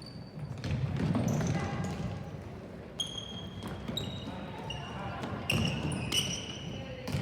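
Basketball being dribbled on a gym floor, with short high squeaks of sneakers on the court coming thick and fast in the second half, over a background of voices.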